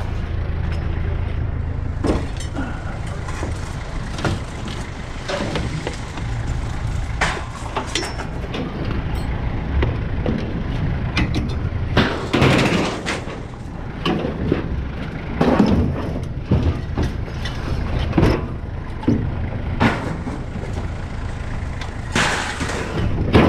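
Scrap metal being unloaded and thrown onto a pile: irregular clanks and bangs, some heavier than others, over a steady low engine rumble.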